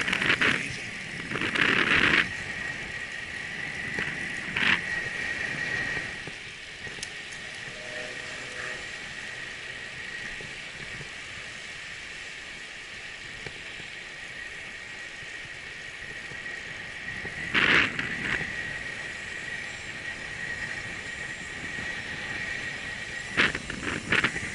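Bicycle rolling along a paved trail at about 22 km/h: steady tyre and air noise with several short, loud rattles, and a steady high-pitched insect drone that comes and goes in strength.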